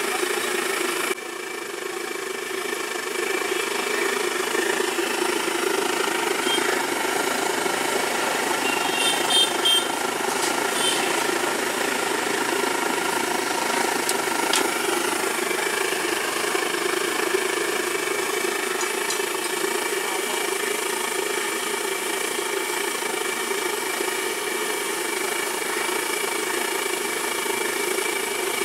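Hot oil sizzling and bubbling in a large iron kadai as banana slices deep-fry, over a steady mechanical hum. A few short clicks come about a third of the way in.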